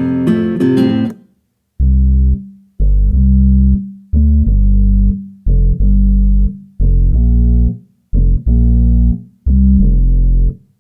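Reggaeton-pop instrumental music. A plucked guitar passage over a beat stops about a second in. After a short gap, a deep bass plays a run of short held notes with pauses between them.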